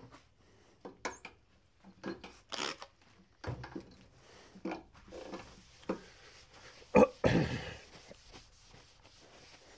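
Rubbing and scattered light knocks as the pallets of a manual screen-printing press are wiped clean by hand. About seven seconds in comes a sharp knock followed by a brief louder rush of noise.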